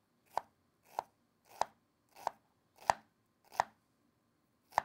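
Chef's knife dicing an onion on a wooden cutting board: seven single chops, about one every two-thirds of a second, with a longer pause before the last.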